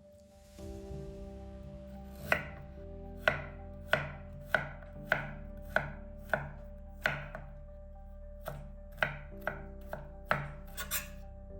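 Knife chopping food on a cutting board: a steady run of sharp strokes, a little under two a second, starting about two seconds in.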